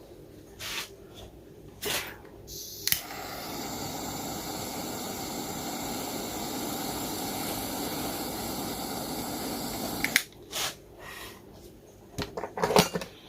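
A steady rushing hiss from a tool used in soldering the wire connectors. It starts about three seconds in, runs about seven seconds and cuts off abruptly. Sharp clicks and handling knocks come before and after it.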